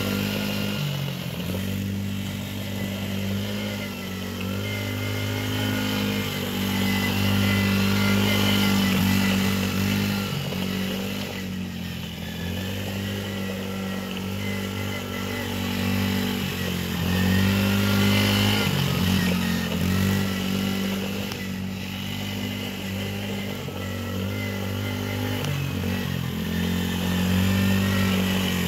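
Small youth ATV engine running continuously, revving up and easing off again and again so its pitch rises and falls every few seconds, with the level swelling and fading as the quad moves nearer and farther.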